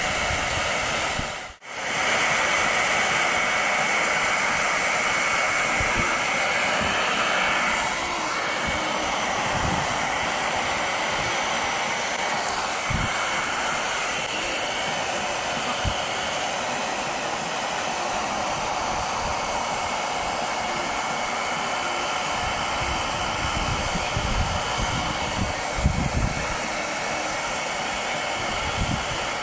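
Hair dryer blowing steadily, a loud rushing of air with a thin motor whine, heating a sticker's adhesive on a truck. It cuts out briefly about a second and a half in, then carries on, with a few faint knocks later.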